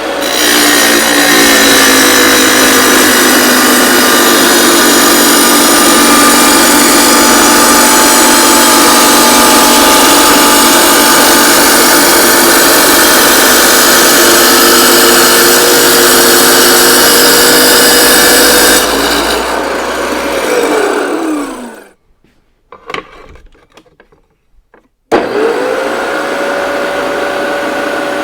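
Electric wet saw with a diamond blade cutting through tile or brick: a steady motor whine under a loud grinding noise for about eighteen seconds. The cut then ends, the saw is switched off and its whine falls away to silence. A few seconds later it is switched on again and spins back up to a steady whine.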